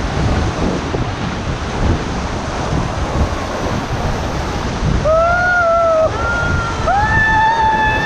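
Rushing whitewater rapids around an inflatable raft, with wind buffeting the microphone. From about five seconds in, the rafters let out a few long whooping cheers.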